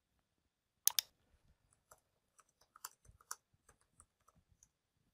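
Typing on a computer keyboard, faint: two sharper clicks about a second in, then a run of small, uneven keystrokes.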